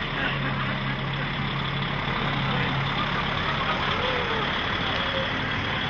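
Diesel engine of a DAF XF tractor unit running as the truck rolls slowly past, a steady low hum that fades about halfway through, over a continuous noisy din.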